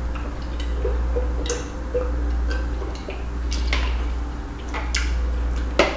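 Close-miked mouth sounds of drinking from a glass jar and chewing: scattered wet clicks and smacks, with a sharper click near the end, over a steady low hum.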